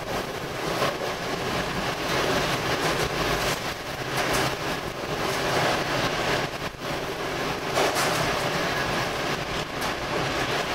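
Hurricane wind and rain beating on a vehicle, heard from inside the cabin: a steady rushing noise that swells and eases with the gusts.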